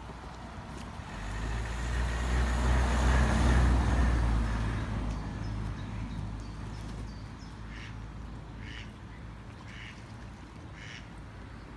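A low rumble swells and fades over the first half, then ducks quack four or five times in short calls.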